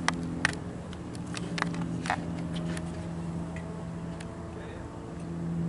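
Single-engine light aircraft's piston engine idling steadily, its hum swelling slightly near the end. A few sharp clicks sound over it in the first three seconds.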